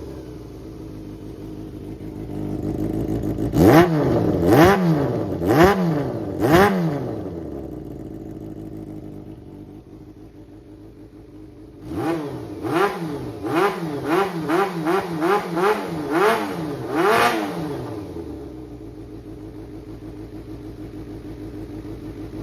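Kawasaki Zephyr χ (ZR400C) 400 cc air-cooled inline-four engine idling and being blipped on the throttle: four sharp revs a few seconds in, then a quick run of about ten short blips, each dropping straight back to a steady idle. The seller describes it as running well with no abnormal noise.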